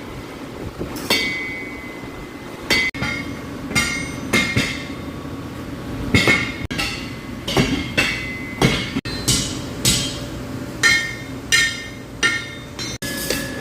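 Hammer blows on steel at an anvil, irregular strikes about one to two a second, each with a short metallic ring.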